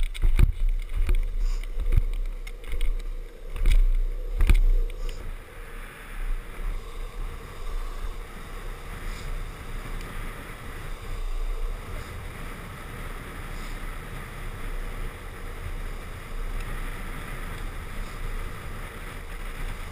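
Wind rushing over the microphone of a camera carried by a longboarder riding downhill at speed, over the steady roll of urethane longboard wheels on asphalt. A few heavy knocks come in the first five seconds, after which the noise settles into an even rush.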